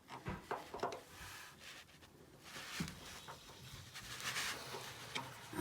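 Faint knocks, clicks and rubbing of hands working the drain valve on a hot water heater, with a soft hiss from about halfway through.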